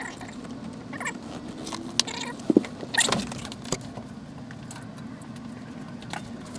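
Scattered light clicks and metallic clinks of small metal hardware and hand tools being handled, over a faint steady hum. The sharpest clinks come about two and a half to three seconds in.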